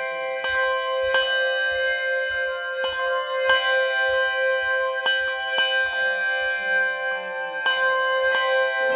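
Handbell ensemble playing a tune: tuned handbells struck in a steady rhythm of about two strikes a second, their tones ringing on and overlapping.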